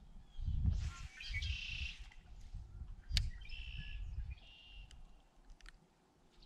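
A bird calling in two bouts of high, chirping notes. Beneath it runs a low rumble that comes and goes, and a single sharp click sounds about three seconds in.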